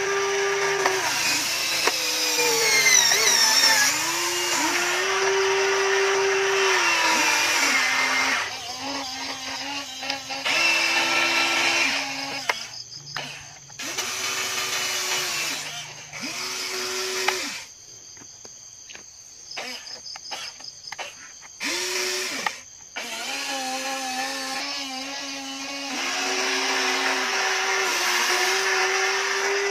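Electric motors of a toy RC excavator whining as the boom, arm and bucket move, the pitch stepping up and down as each motion starts and stops, with short pauses and a few clicks in the middle.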